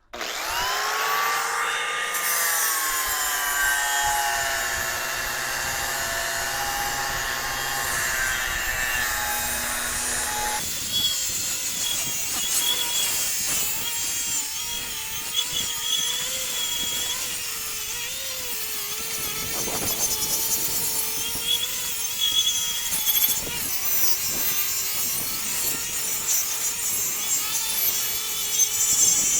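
Electric angle grinder starting up with a rising whine, then grinding mill scale off steel channel: at about ten seconds the pitch drops and wavers as the disc bears down on the metal, with a rough grinding noise alongside.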